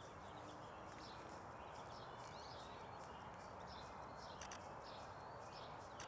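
Faint outdoor ambience: a steady low hiss with small birds chirping and tweeting throughout, and a couple of quick sharp clicks about four and a half seconds in.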